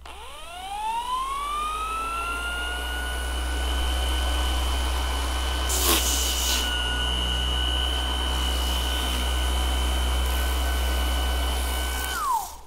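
YOKIJI KS-01-150-25 brushless random orbital sander, 150 mm pad, starting up at speed setting 4 (about 4000 rpm) with a soft start: its whine rises smoothly over about two seconds and then runs steady and high. There is a brief scuff about six seconds in, and near the end it is switched off and the whine drops away quickly.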